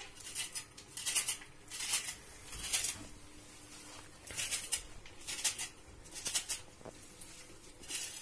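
Kitchen knife slicing through a bunch of fresh parsley held in the hand, crisp cuts about once a second, with a short lull about three seconds in.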